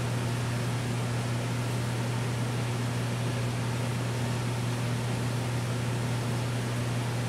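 Steady low hum over an even hiss from a running reef aquarium's pumps and circulating water.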